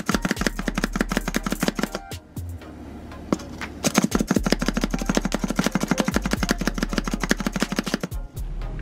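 Sunbeam Quick Chop plunger-style hand chopper being pumped rapidly, its spring-loaded blades clacking down through an onion onto a plastic cutting board. It pauses about two seconds in, resumes about four seconds in and stops near the end.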